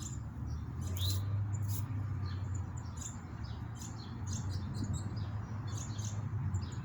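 Small songbirds chirping, many short high calls and quick rising notes scattered throughout, over a steady low rumble of wind on the microphone.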